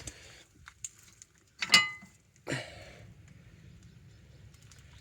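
Light metal clicks of worn rear disc brake pads being handled at the caliper bracket, with one louder ringing clink a little under two seconds in.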